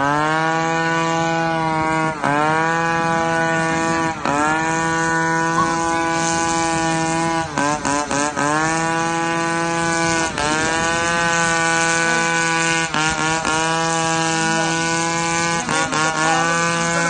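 A motorboat engine drones loudly and steadily. Its pitch dips briefly and climbs back to speed about every two to three seconds.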